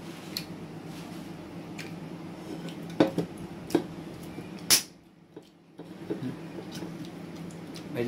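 Close eating and handling noises: a few sharp clicks and knocks, the loudest about three to five seconds in, over a steady low hum.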